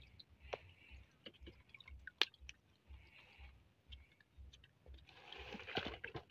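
Faint drips and small splashes of water, with scattered light ticks, rising to louder splashing about five seconds in as hands reach into the shallow creek water.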